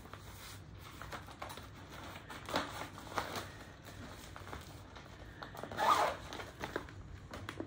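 Plastic zip-top bag crinkling and rustling as it is handled, in scattered strokes, with the loudest rustle about six seconds in.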